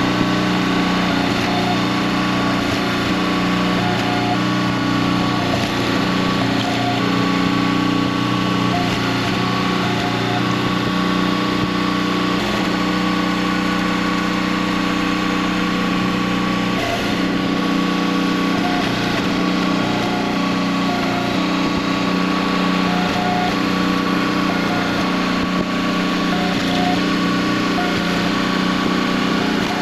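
Small gasoline engine of a Split-Fire 2265 two-way hydraulic log splitter running steadily at working speed as hickory rounds are split, its note shifting briefly a few times.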